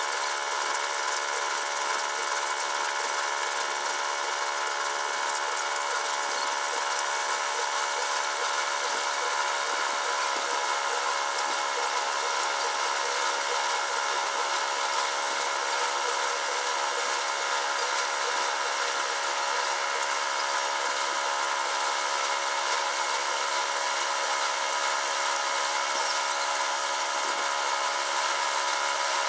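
A steady mechanical hum made of several fixed tones, unchanging in pitch and level.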